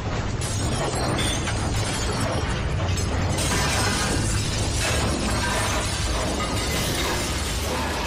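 Sound-effect transition: a steady, dense crashing noise over a deep rumble, mixed with background music.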